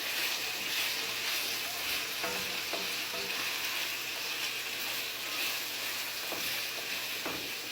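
Bacon sizzling steadily in a frying pan as it is stirred, with a few clicks of the utensil against the pan.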